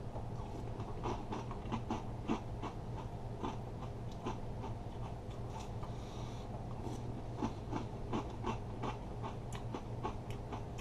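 Crunchy breakfast cereal being chewed, heard as irregular soft crunches and clicks over a steady low hum.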